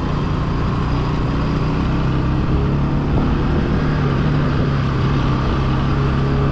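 Single-cylinder motorcycle engine running steadily under light throttle while riding a dirt track, with wind rumble on the microphone.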